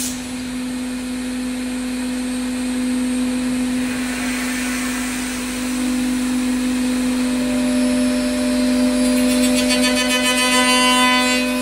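HSD spindle of a 5-axis CNC router running with a steady high whine while milling a curved wooden chair part. From about halfway through, the cutting adds a harsher set of higher tones that grow louder toward the end.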